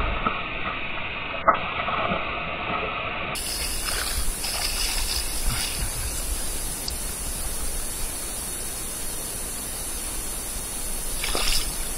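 Hooked fish splashing and thrashing at the water's surface as it is drawn in to the shore on a line, with a few sharp splashes over a steady hiss.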